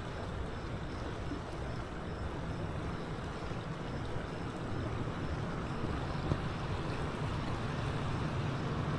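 Steady rushing noise of flowing river water, even throughout with no distinct events.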